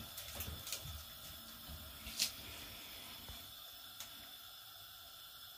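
A few light clicks of metal tongs against a glass bowl as marinated chicken wings are picked up, over quiet room tone; the sharpest click comes about two seconds in.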